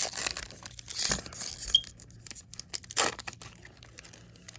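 Foil wrapper of a baseball card pack being torn open and crinkled, a run of crackling rustles with louder bursts near the start and about three seconds in.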